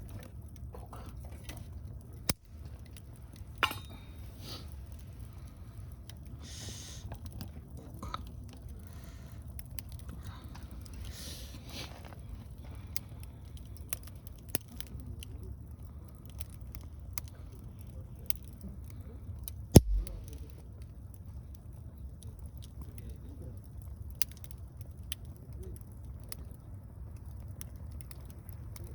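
Wood fire crackling with scattered small pops and one loud sharp snap about twenty seconds in, over a low steady rumble.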